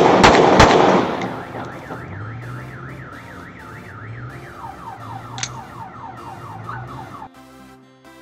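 Two sharp shots from a Bruni GAP blank-firing pistol, a Glock 17 replica, one at the very start and one about half a second later, followed by about a second of loud blast and echo. An electronic alarm then sounds with a rising-and-falling siren tone, switches to a different pattern about halfway through, and cuts off near the end.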